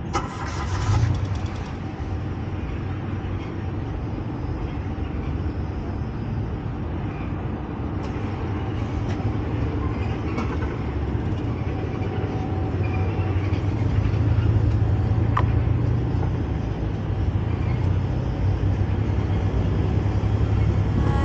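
Car on the move, heard from inside the cabin: steady engine and road noise, with a brief louder sound about a second in.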